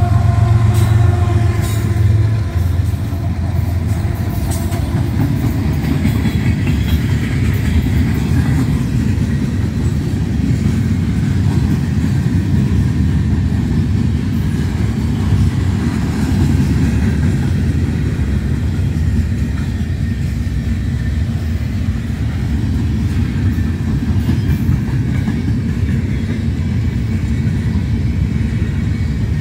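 A GE ES44AC diesel-electric locomotive passing close, its engine hum strongest for the first two seconds or so. Then a long string of empty freight gondola cars rolls by with a steady low rumble of steel wheels on rail.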